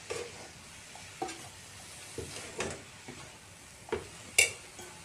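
A metal spoon stirring shredded cabbage and carrots in a large metal wok, scraping and knocking against the pan about six times, the loudest knock near the end. A faint steady sizzle of the vegetables frying runs underneath.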